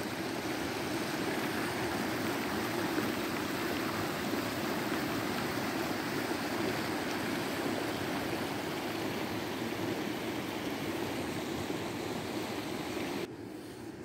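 Flash-flood runoff from heavy rain rushing fast and strongly down a rocky desert gully in small cascades, a steady sound of rushing water. It gets quieter suddenly about a second before the end.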